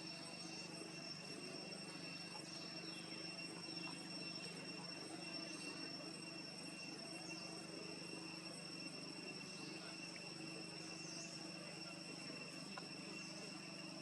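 Steady high-pitched insect chorus droning without a break, with faint short chirps here and there.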